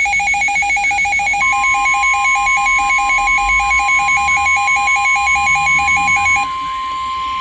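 Emergency alert tones: a rapid, evenly repeating two-pitch electronic beeping, joined about a second and a half in by a steady single-pitch warning tone of the NOAA Weather Radio kind. The beeping stops about six seconds in and the steady tone carries on alone.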